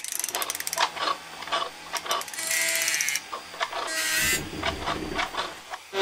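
Mechanical sound effects for an animated machine. A fast ratcheting clatter of clicks opens it, then come scattered clicks and two short whirring buzzes, with a low rumble setting in about four seconds in.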